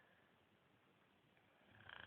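Snoring in slow, regular breaths. A soft breath out fades at the start, then after a quiet pause a loud snore on the next breath in begins near the end.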